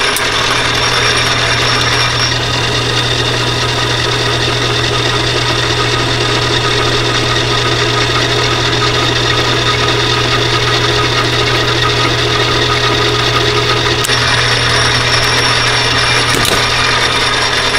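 A 1950s Logan turret lathe runs at about 100 RPM with a loud, steady motor hum while a geometric die head cuts a 1/2-20 thread on half-inch bar stock. A sharp click comes near the end.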